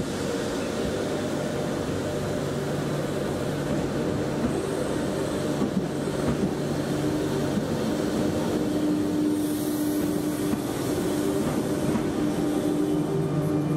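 Double-deck RER electric multiple unit moving slowly through the station: wheel-on-rail rumble with a steady electric motor hum.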